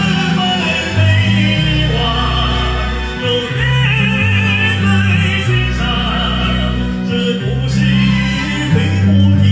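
A voice singing in a classical bel canto style over a karaoke backing track, with vibrato on the held notes. The microphone has no echo effect switched on, so the voice is dry.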